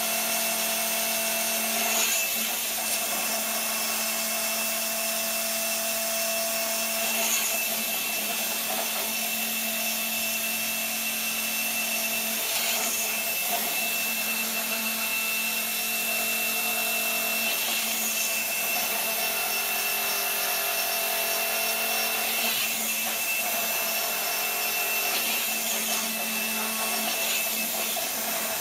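Electric motors of a gyroscopic inertial thruster running with a steady whine and hum, with a brief surge every few seconds as the machine runs its drive cycles.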